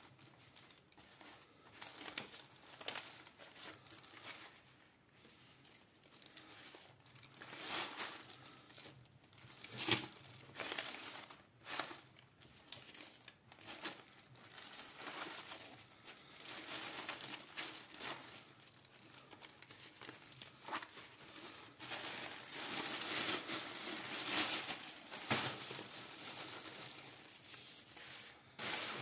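Paper banknotes rustling and a thin black plastic bin bag crinkling as hands shuffle through loose bundles of cash. The rustling comes in irregular bursts and is loudest toward the end.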